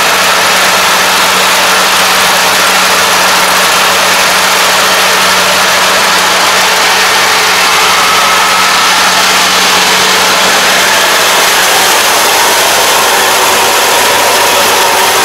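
Kubota ARN460 combine harvester running steadily while cutting and threshing rice: the loud, even drone of its engine and harvesting machinery, with a constant low hum.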